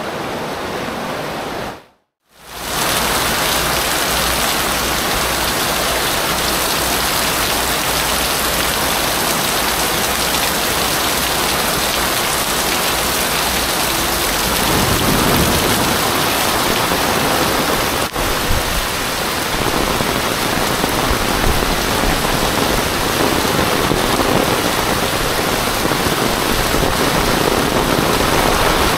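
Heavy tropical rain pouring onto a street: a loud, steady hiss of rain on pavement and roofs. It breaks off briefly about two seconds in, and a deeper low rumble joins in about halfway through.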